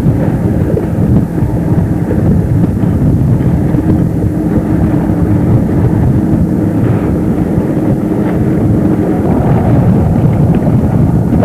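Wind blowing across the camcorder microphone, a heavy, steady low rumble, with a faint steady hum underneath that fades near the end.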